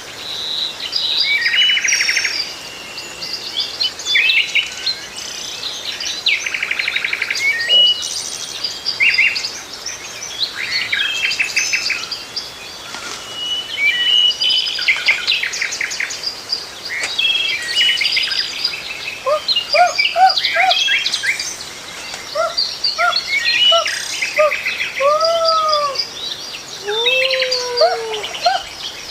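Many birds chirping and singing at once, with dense high chirps and rapid trills. In the second half they are joined by a lower bird repeating short arched whistled notes.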